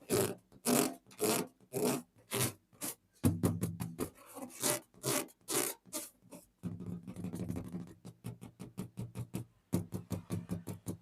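Rubber balloon being rubbed and scraped in a run of short strokes, about two a second at first, then quicker strokes over a low buzzing hum from about three seconds in.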